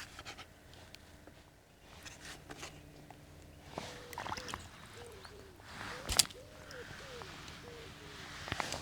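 Faint river-water sounds: soft splashing and small plops, with one sharp click about six seconds in.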